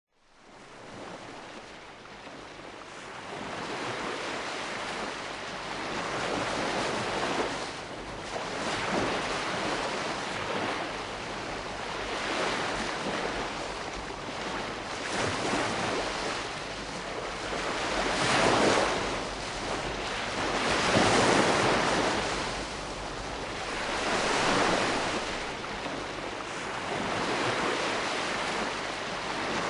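Calm sea: gentle waves washing in and out on the shore, the surf swelling and easing every few seconds, with a steady wash of water between. It fades in over the first few seconds.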